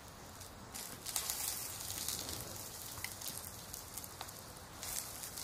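Steady pattering hiss with small crackles, like an ambient rain track.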